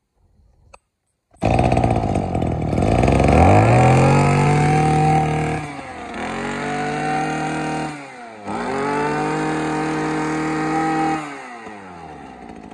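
Maruyama MB260 26cc two-stroke brush cutter engine catching suddenly about a second and a half in and revving up to high speed. It is blipped with two brief dips and held at high revs again, then drops back to idle near the end.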